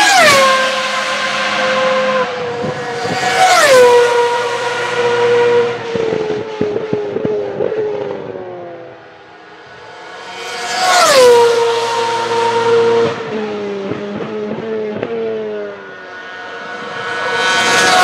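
High-revving Ferrari Formula One car engines screaming past one after another, four times. Each pass ends in a sharp drop in pitch, followed by a steady engine note as the car goes away. Between the second and third pass there is a run of sharp crackles.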